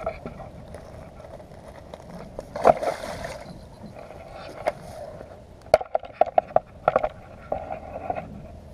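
Carp thrashing in a landing net in shallow water: a burst of splashing about three seconds in, then a quick run of sharp splashes and knocks a couple of seconds before the end.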